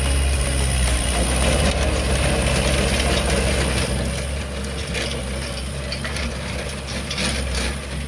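Kubota L5018 diesel tractor engine running steadily. It eases slightly in loudness after about four seconds, and mechanical clicking and rattling comes in over the second half.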